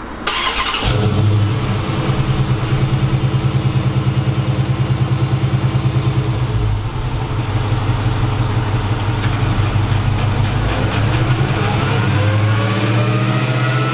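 The 5.7-litre Hemi V8 of a Dodge Charger R/T, breathing through long-tube headers, catted mid pipes and an SLP exhaust, running on a chassis dyno with an even pulsing beat. From about ten seconds in the revs climb steadily with a rising whine as a baseline pull begins.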